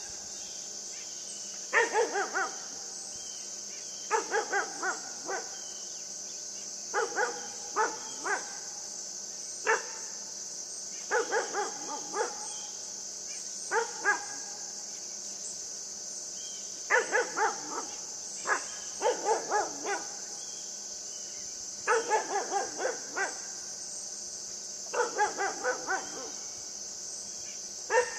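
Great Pyrenees–Siberian Husky mix puppy barking at a deer in short runs of two to five barks, a run every few seconds. A steady high insect hum runs underneath.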